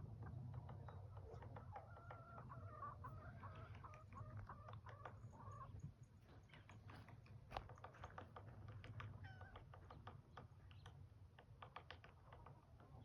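Woodpecker pecking at wood: faint, irregular sharp taps, densest in the second half. A faint wavering call comes before the taps.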